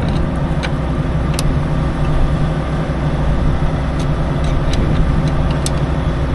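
Large diesel engine idling steadily, with a few light clicks over it.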